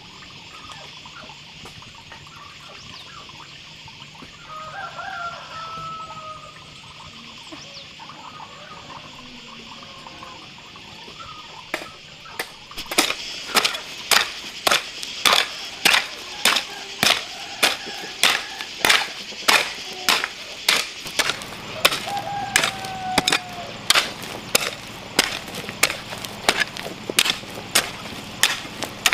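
Hand hoe chopping into dry, stony soil: a regular series of sharp strikes, about three every two seconds, starting near the middle. Before the hoeing there is a steady high background hiss with a couple of short bird calls.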